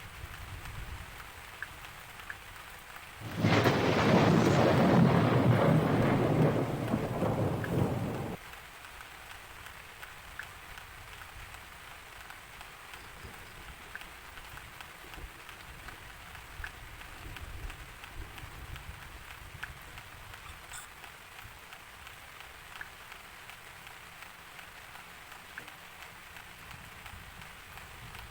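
Steady rain falling, with scattered drop ticks. About three seconds in, a loud thunderclap breaks in and rumbles for about five seconds, then cuts off suddenly.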